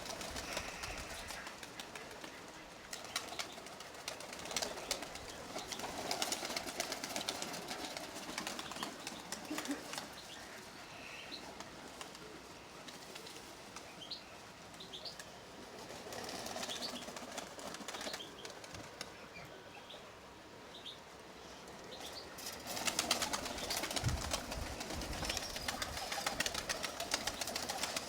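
Nikolaev pigeons' wings flapping in rapid clattering spells, loudest in the last five seconds, with a few faint bird chirps in between.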